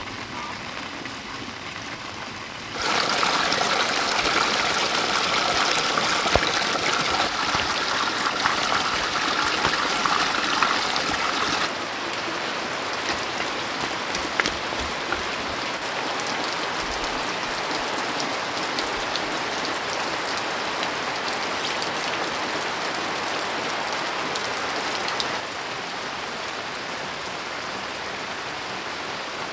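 Steady rushing water noise with fine scattered drip-like ticks. It jumps louder about three seconds in, drops back somewhat around twelve seconds, and drops a little again near the end.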